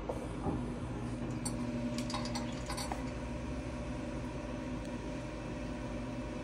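Grand Teton pellet stove starting up: a steady motor hum, with several light clinks in the first three seconds as the auger drops pellets down the chute into the burn pot.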